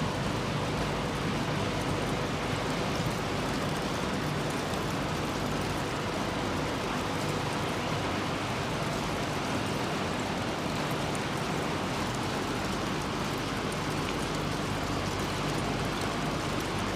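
Steady running noise of refrigerator-recycling machinery: an even, unbroken industrial din with a faint steady hum.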